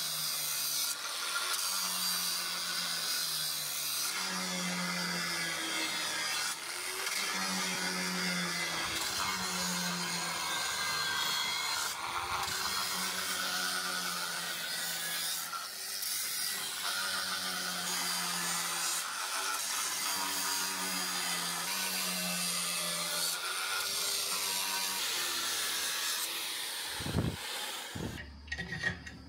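A power tool working a piece in repeated passes, its hum dipping and recovering every second or two. It stops near the end.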